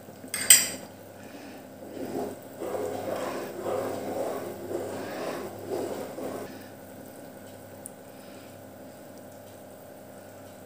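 A sharp clack about half a second in, then a spatula stirring thickened soup in a pan, sloshing and scraping in irregular strokes for about four seconds before it stops.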